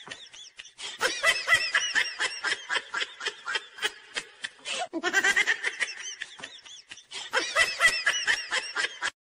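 High-pitched laughter in rapid, quick-fire bursts, which begins again about five seconds in.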